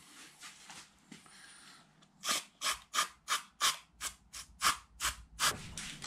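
Aerosol brake cleaner sprayed in about ten short, quick bursts, roughly three a second, starting about two seconds in, to flush old wheel bearings clean.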